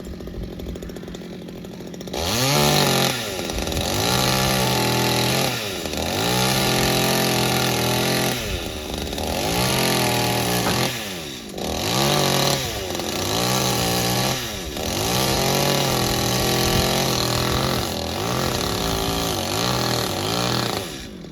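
Two-stroke chainsaw idling, then from about two seconds in held at full throttle through a cut, its pitch sagging and recovering every two to three seconds as the chain loads up in the wood. The saw drops back to idle just before the end.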